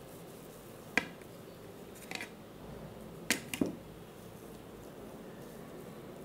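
Four short, sharp light taps over faint room tone: one about a second in, one about two seconds in, and two close together just past the middle.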